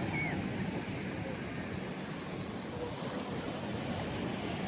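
Steady seaside ambience: ocean surf washing in, with wind on the microphone and a few faint short pitched sounds.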